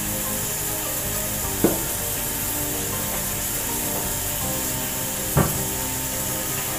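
Two short, sharp knocks, one a little under two seconds in and one about five and a half seconds in, over steady background music.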